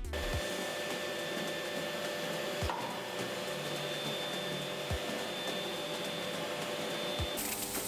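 Freund Flow Coater Mini fluid-bed granulator running: its blower gives a steady rushing hum with a faint whine and a soft low thump about every two seconds. Near the end the air noise turns brighter and its tones change.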